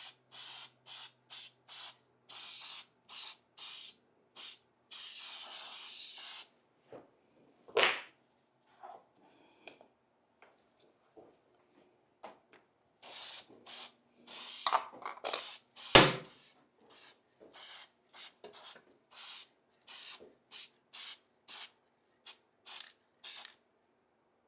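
Aerosol can of copper-coat gasket sealant sprayed onto an engine base gasket in quick short hisses, two to three a second, with a longer hiss about five seconds in; after a pause a second run of short hisses coats the other side. A knock sounds about eight seconds in and a louder one about sixteen seconds in.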